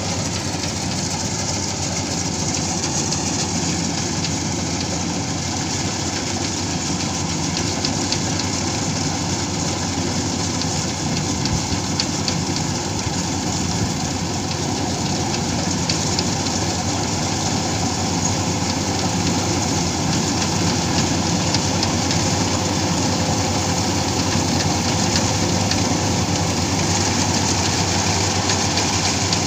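Rice combine harvester running steadily while it cuts rice: a dense, even engine-and-machinery noise that grows a little louder as the machine comes closer.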